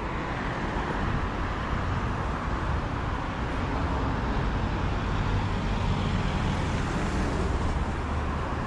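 City street traffic: cars and a bus driving past, with a steady road noise and a low engine rumble that grows louder about halfway through.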